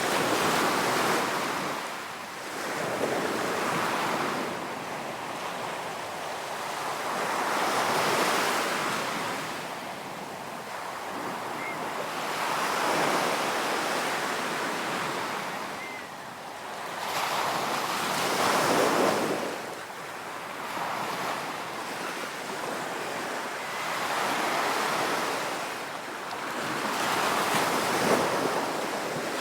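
Ocean waves breaking on a beach, the surf rising and falling in slow surges every five seconds or so.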